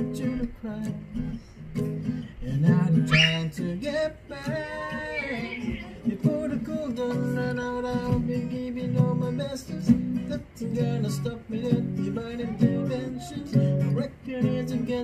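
A guitar strummed in a steady rhythm with a voice singing along, a home acoustic jam.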